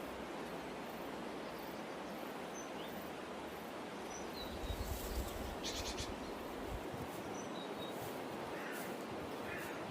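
Outdoor nature ambience: a steady background hiss with scattered short bird chirps and a brief rapid trill midway, and a few soft bird calls near the end. A low rumble of wind on the microphone comes midway.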